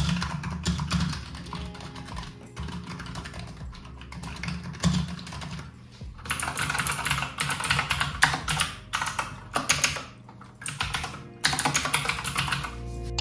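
Typing on two mechanical keyboards in turn. First comes a Razer Huntsman Tenkeyless V2 with red linear optical switches and sound-dampening foam, giving softer, duller strokes. From about six seconds in it switches to a Razer BlackWidow V3 with green clicky switches, giving brighter, sharper clacks.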